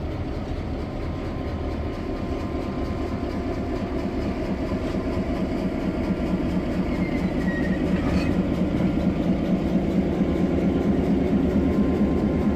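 A slow diesel-hauled train led by an EMD F3A locomotive rolling past, its diesel engine running with a steady pulsing and its steel wheels rolling on the rail, growing louder as it comes by. About seven seconds in there is a short squeal of wheel on rail, followed by a sharp metallic click.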